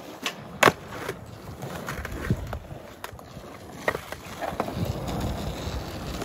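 Skateboard rolling, its wheels making a steady noise, with one sharp, loud clack of the board about half a second in and a few lighter clacks and knocks after.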